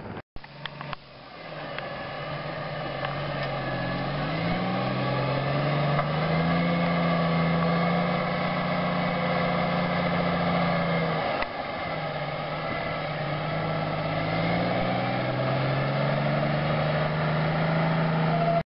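Diesel engine of a road train (prime mover hauling two side-tipper trailers) pulling away and building speed, growing louder over the first few seconds. Its engine note climbs, drops at a gear change about eleven seconds in, then climbs again.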